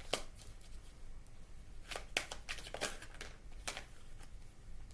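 A deck of tarot cards being shuffled by hand, with irregular short card snaps and rustles.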